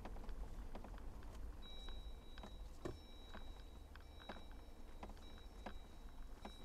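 A high electronic beep tone sounds on and off from about two seconds in, over a low steady rumble and scattered light taps.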